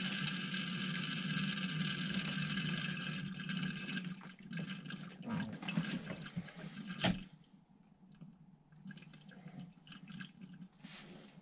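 Engine coolant being drawn out of a Beta Marine 28 hp cooling system: liquid runs steadily for about four seconds, then dies away. A single sharp knock comes about seven seconds in, followed by faint small clicks.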